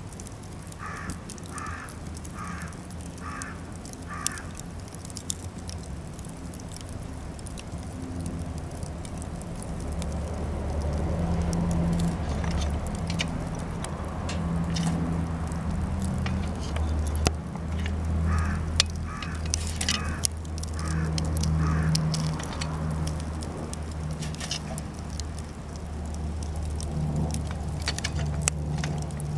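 Cedar scrap-wood fire crackling with scattered sharp pops over a low rumble. A crow caws twice in runs of about five caws, once near the start and again about two-thirds of the way through.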